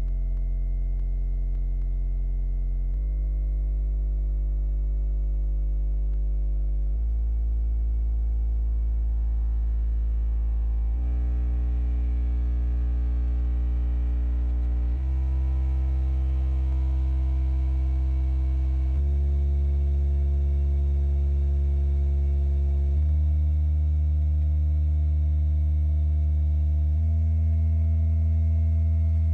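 American Bass Titan 1244 subwoofer in a sealed box playing a stepped bass test sweep, driven hard by an amplifier under a power test. Each steady low tone holds for about four seconds, then steps up to a higher pitch.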